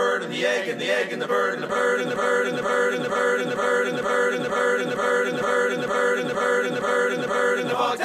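Folk song: male voices singing a fast phrase that repeats evenly about two to three times a second, over acoustic accompaniment.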